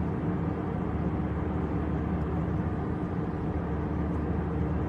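Steady drone of a jet airliner's cabin in flight: turbofan engine and airflow noise with a low, even hum.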